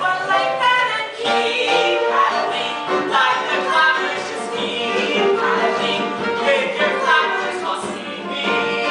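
A musical-theatre song: voices singing a melody over instrumental accompaniment.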